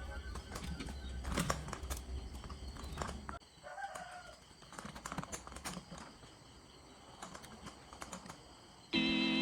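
Scattered light clicks and taps, with a low hum for the first three seconds or so. Music starts again just before the end.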